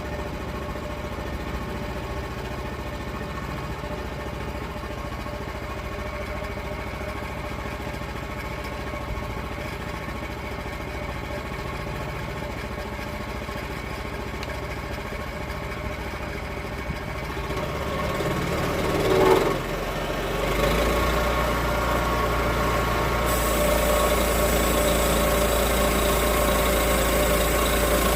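A log sawmill's engine running steadily. About 19 seconds in it rises briefly in pitch, then runs on louder with a deeper hum, and a hiss joins it a few seconds later.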